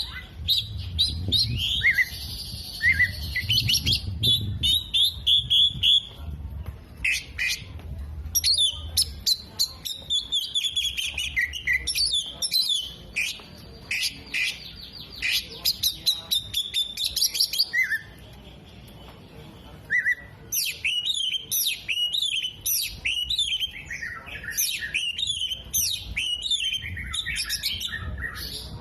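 Oriental magpie-robin (kacer) singing hard: a dense run of fast chirps, trills and whistled notes, mixed with imitations of sunbird, bearded bulbul and lovebird calls. The song breaks off briefly about two-thirds through, then resumes.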